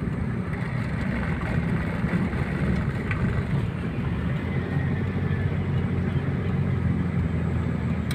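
Steady low rumble of a car driving on a smooth concrete road, engine and tyre noise heard from inside the cabin.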